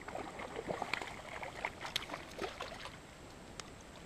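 Water splashing as a hooked catfish thrashes at the surface while being reeled in: a run of irregular splashes over the first two and a half seconds or so, then it settles.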